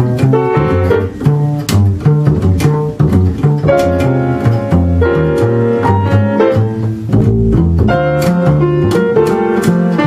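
Upright double bass plucked pizzicato in a jazz trio, playing a moving line of notes that change about every half second, with piano chords above it.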